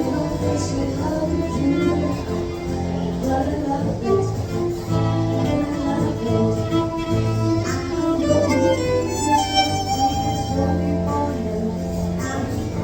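Music: a violin playing a melody over a backing track with sustained bass notes.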